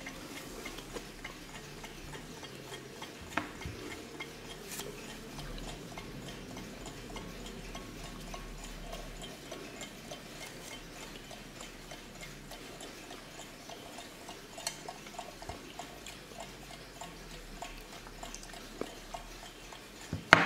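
Junghans braille alarm clock ticking steadily, with a few louder clicks, the loudest near the end.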